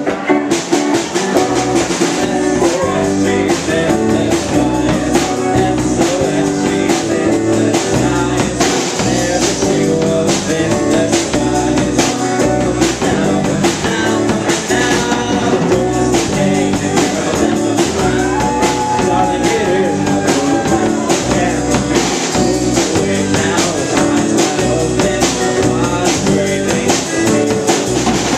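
Live rock band playing a song: electric guitar, bass guitar and drum kit, with a steady beat of drum hits.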